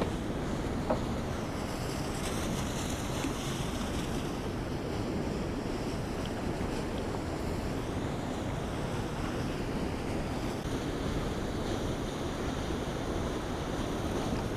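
Steady rush of turbulent water churning in the outflow below a dam spillway, with wind on the microphone.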